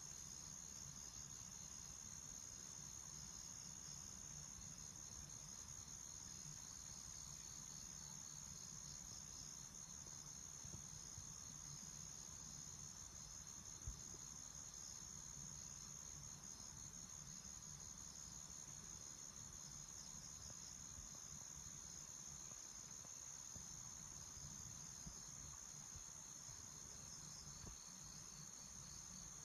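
Faint night-time insect chorus: a steady high-pitched trilling with a fast pulsing texture beneath it, continuous throughout.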